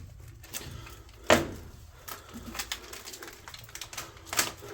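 Footsteps and knocks on old wooden floor planks: a scatter of light clicks and creaks, with a loud knock about a second in and another near the end.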